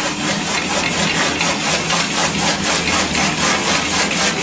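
Engine running steadily with an even, repeating beat.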